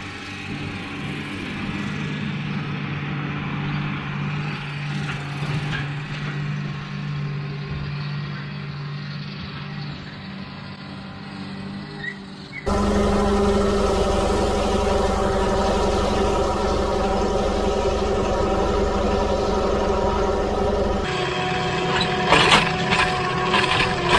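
Large John Deere tractor's diesel engine running steadily as it pulls a fertilizer spreader cart across the field, growing louder as it comes nearer. About halfway through, the sound cuts suddenly to a louder, much closer engine run with a heavy low noise. Near the end come a few sharp knocks.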